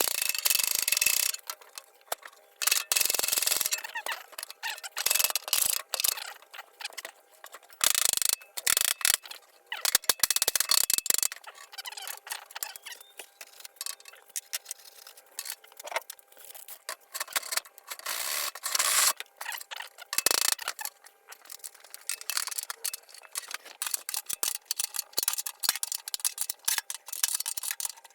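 Hand tools working the bolts of a metal lathe stand: irregular clicks and clanks of metal on metal.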